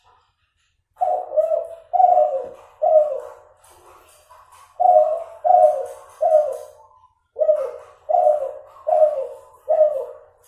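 A bred spotted dove (derkuku, an F2 Kelantan cross) cooing in three phrases of three to four slightly falling coos each, with short pauses between phrases. Its voice is still nasal, and the number of closing notes is not consistent from phrase to phrase.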